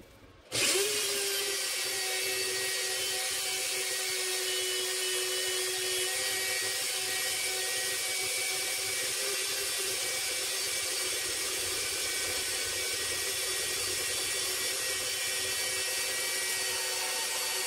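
Parkside portable metal band saw starting about half a second in and running steadily as its blade cuts through a rusty steel bar: an even motor hum under a dense high hiss of the blade in the steel.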